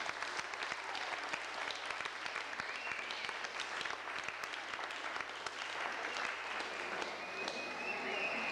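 Applause: many people clapping at once, a steady dense patter of claps.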